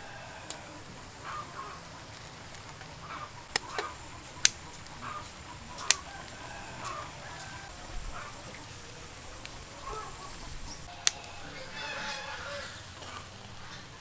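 Kitchen scissors cutting grilled squid on a wire grill rack, giving several sharp clicks of the blades, most of them a few seconds in and one about eleven seconds in. Chickens cluck in the background.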